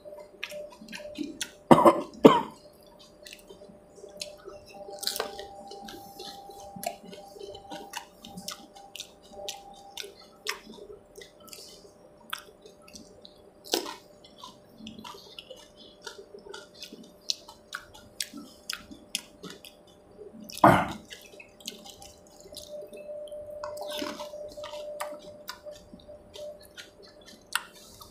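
Close-up eating of pani puri: crisp puris cracking, wet chewing and slurping of the spiced water, in many small clicks and squishes. Louder sudden sounds break in twice, a pair about two seconds in and one a little after twenty seconds in.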